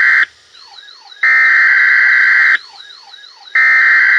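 Emergency alert SAME header: loud bursts of warbling digital data tones, each a little over a second long and about a second apart. A quieter, sweeping siren-like tone warbles in the gaps between them.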